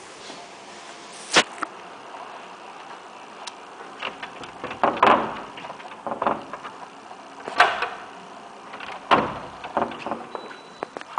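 A sharp click about a second in, then several short scuffing and rattling noises: the wooden-framed glass balcony doors being unlatched and pushed open.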